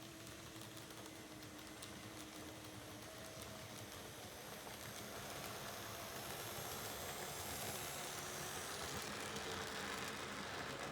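A train climbing toward a level crossing, its running noise growing gradually louder as it approaches, with faint clicking and a faint whine.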